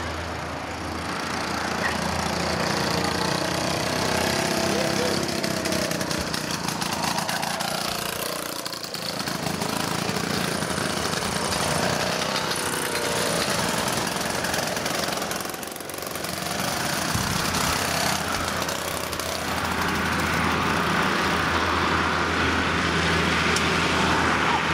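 Several VeloSoleX mopeds' small two-stroke engines running as they ride past, a buzzing whose pitch bends up and down as each one goes by, over a steady low drone.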